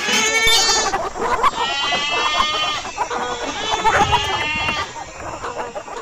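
Several goats bleating, their calls overlapping, growing quieter near the end.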